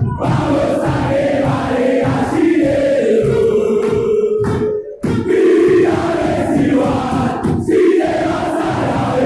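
Crowd of football supporters singing a terrace chant together, many male voices carrying one melody over a steady low beat. The sound dips out briefly about halfway through.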